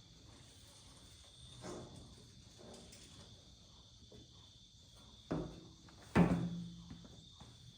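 A few sharp metallic knocks, the loudest near the end with a brief ringing clang, over a steady high-pitched tone.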